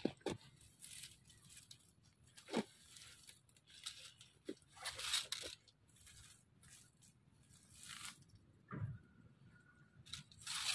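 A wire-mesh cage trap holding a snake being set down and shifted on dry leaves and sandy ground, with a plastic mesh bag being handled: scattered rustles, scrapes and light clicks of the wire.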